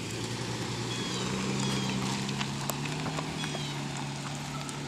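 A vehicle engine running steadily, its hum changing pitch about a second in. Short, high, falling chirps repeat over it.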